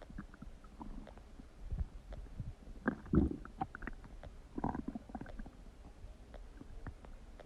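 Human stomach gurgling and rumbling: irregular short gurgles and brief low rumbles, the loudest about three seconds in and again about a second and a half later.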